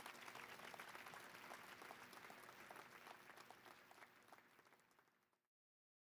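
Audience applauding, fading out and cutting off to silence about five and a half seconds in.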